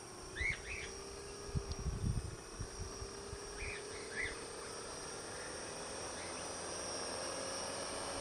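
Tricopter's brushless motors and propellers spinning at low throttle on the bench, a steady hum creeping slowly up in pitch. A few bird chirps and some low rumbles come through in the first half.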